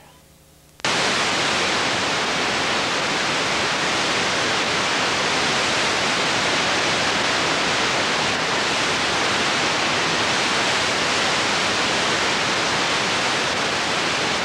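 Loud, steady static hiss from a videotape where no signal was recorded. It cuts in abruptly about a second in, after a brief near-quiet moment.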